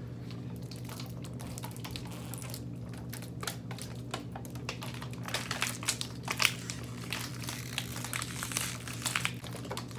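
Plastic water bottles crinkling and crackling in irregular bursts as several people squeeze them while chugging. A steady low hum runs underneath.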